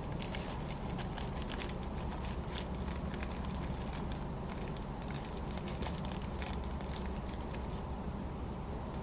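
Many small, irregular clicks and rustles of tiny pivot washers and collars being handled and fished out of their small container, over a steady low hum.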